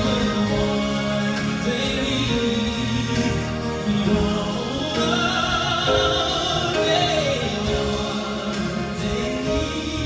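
A male singer performing a slow ballad live, holding long notes, accompanied by a grand piano and a string quartet.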